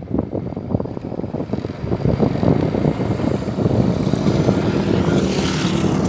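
Diesel engine of a wheeled excavator driving closer, its rumble growing louder, with wind buffeting the microphone.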